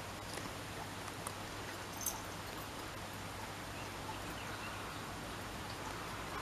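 Quiet outdoor ambience: a steady low hiss with a few faint light clicks and taps, the sharpest about two seconds in.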